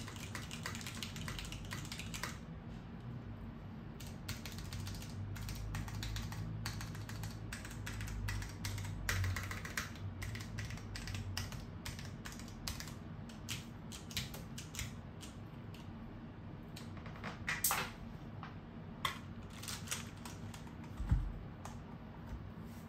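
Typing on a Salamander TKL mechanical keyboard with broken-in, unlubed stock Cherry MX Brown switches and Cherry POM keycaps: a fast run of key clacks at first, then slower, separate keystrokes. Near the end a single thump as the keyboard is turned over onto the desk.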